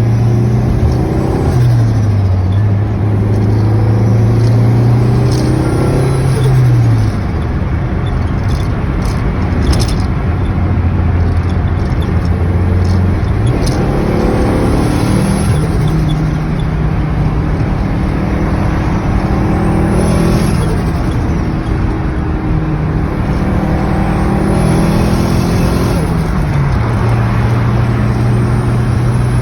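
Turbocharged Chevrolet Corsa pickup accelerating, its engine pitch climbing and then dropping at each gear change, with a high whistle rising and falling several times. A burst of short chattering clicks near the middle is the turbo flutter when the throttle closes.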